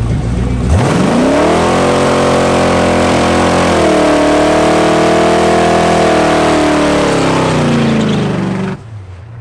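A drag-racing car's engine launching and accelerating hard down the strip. Its pitch climbs steeply, drops once at an upshift about three seconds after the launch, then holds high and eases off slightly before cutting off abruptly near the end.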